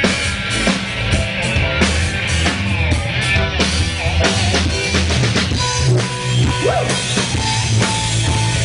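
Rock drum kit playing a busy groove of bass drum, snare and cymbal hits, with bass guitar and guitar playing underneath.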